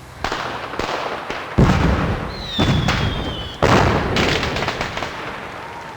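Fireworks going off: a run of booming bursts, the two heaviest about a second and a half and three and a half seconds in, each followed by crackle. A high whistle sounds for about a second in the middle, and the bursts die away into a fading rumble.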